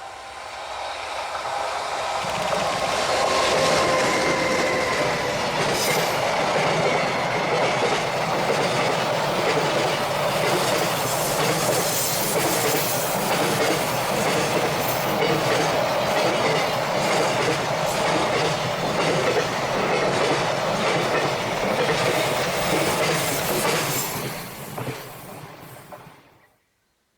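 A freight train hauled by a JR Freight EH500 electric locomotive passing close by: its sound builds over the first few seconds, with a thin whine in the first several seconds, then becomes a long steady rumble and clatter of wagon wheels over the rails that fades near the end and cuts off.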